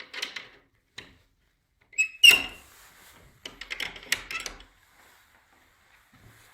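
Handling noises: a click, then a sharp clack with a brief ring about two seconds in, followed by a second or so of rattling and scraping, as of a door or hatch being worked.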